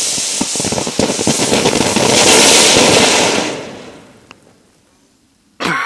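Ground firework fountain spraying sparks: a loud, steady hiss packed with crackles that swells, then fades out after about three and a half seconds. A brief voice sounds near the end.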